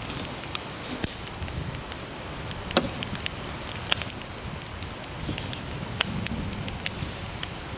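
Wood campfire crackling, with scattered sharp pops and snaps over a steady low hiss.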